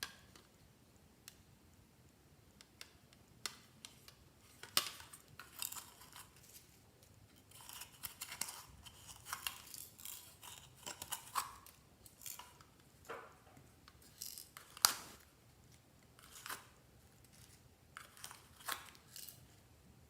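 Irregular clicks, snaps and crackles of slime and its mixed-in add-ins being handled, sparse at first, densest through the middle and thinning out near the end.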